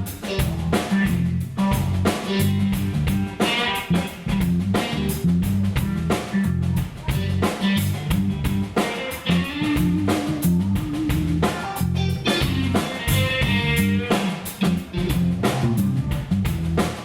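Live blues band playing an instrumental passage: guitar lines over a drum kit's steady beat and a walking bass line.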